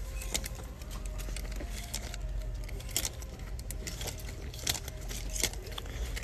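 Wire clothes hangers clicking and scraping along a metal clothing rack as trousers are pushed aside one after another, in irregular clinks, with the rustle of the fabric. A steady low hum runs underneath.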